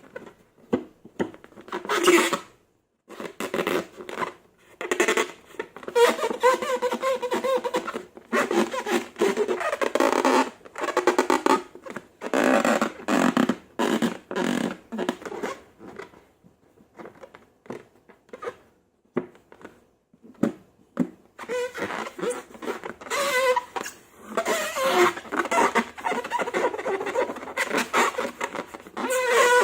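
Slime being squeezed and worked by hand, with wet squelches and crackling pops of trapped air. It comes in irregular runs, with a longer lull about halfway through.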